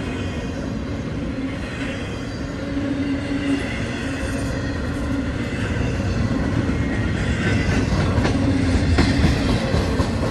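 Double-stack intermodal freight cars rolling past, their wheels running on the rails in a steady rumble. A few sharp clicks come near the end.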